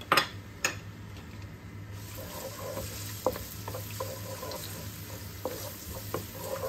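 Minced garlic sizzling in hot oil in a non-stick pan, stirred with a wooden spatula that clicks and scrapes against the pan; two sharp knocks just at the start, and the sizzle thickens about two seconds in. The garlic is being sautéed toward golden brown.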